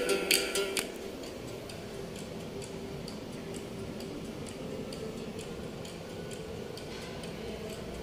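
Soft, regular ticking, about three ticks a second, over a faint steady hum. It follows loud percussive music that cuts off about a second in.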